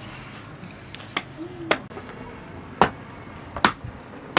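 Wood fire under a cooking pot crackling, with about five sharp, separate pops spaced irregularly.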